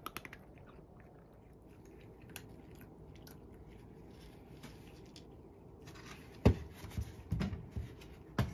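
Domestic cat crunching dry kibble from its bowl: a run of short crisp crunches, sparse and faint at first, louder and closer together from about six and a half seconds in.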